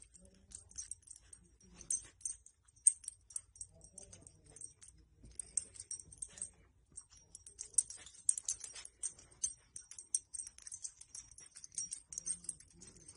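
Faint rustling and light, irregular clicking as a dog noses and tugs a soft blanket.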